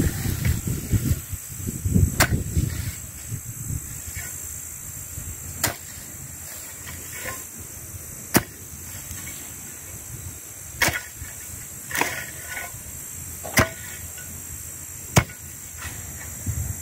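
Hoe dragging through a pile of cut weeds and grass, with rustling in the first few seconds and again at the very end. Single sharp clicks every second or two, over a steady high hiss.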